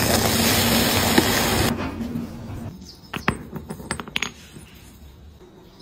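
Water poured onto a freshly cast metal ingot in its mould hisses loudly as it boils off the hot metal, stopping abruptly about two seconds in. About three seconds in, the small metal ingot clatters onto concrete, a quick run of sharp knocks as it bounces and settles.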